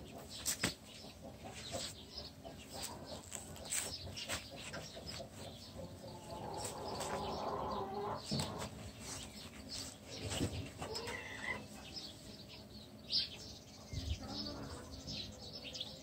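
A young leaf monkey scrambling on a woven reed hammock and a mat: scattered rustles and light knocks, irregular throughout.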